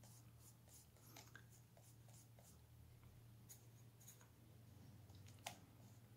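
Faint scratching and rubbing of a PanPastel sponge applicator worked over a plastic stencil onto paper, in short repeated strokes over a low steady hum, with one sharper tick near the end.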